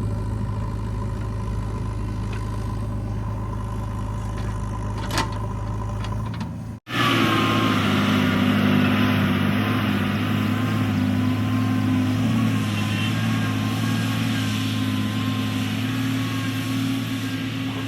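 Diesel engine of heavy machinery running steadily, with one sharp click about five seconds in. After an abrupt cut, a louder engine runs on with a wavering whine over it.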